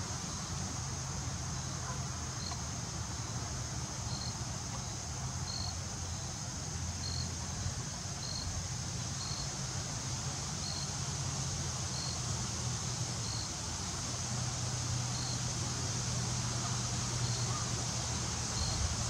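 Outdoor lakeside ambience: a steady high drone of insects, with a short high chirp repeating every second or so, over a low steady hum like distant traffic.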